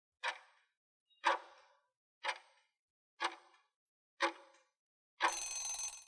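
Countdown timer sound effect: a clock ticking once a second, five ticks, then a short ringing alarm near the end as the countdown runs out.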